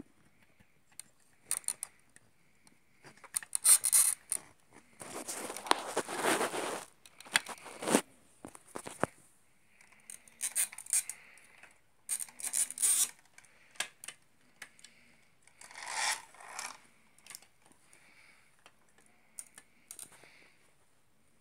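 Plastic LEGO pieces being handled: scattered small clicks and scrapes of bricks, with short rustling bursts and one longer scraping rustle lasting about two seconds, about five seconds in.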